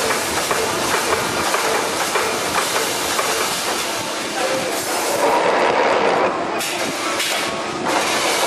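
GSA-200-2800 wire mesh welding machine running, spot-welding wire into mesh: a dense rapid clatter over a steady hiss.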